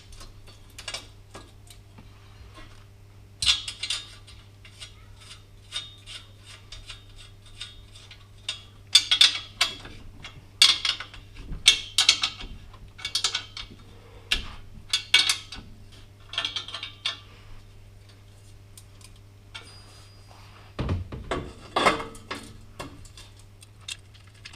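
Metal clanks and clicks of steel exhaust pipes and hand tools as rear muffler-delete pipes are fitted to a car's exhaust flanges. The clanks come in irregular clusters over a low steady hum, with a heavier knock near the end.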